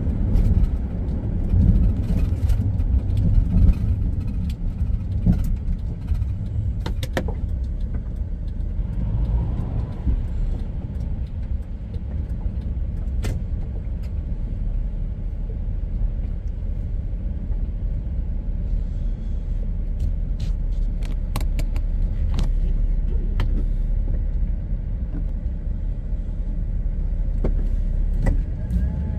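Car driving, heard from inside the cabin: a steady low rumble of engine and road noise, with a few scattered clicks.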